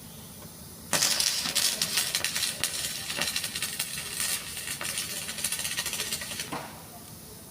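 Electric arc welding on an excavator bucket: a dense crackling sizzle of the arc that starts about a second in and stops shortly before the end.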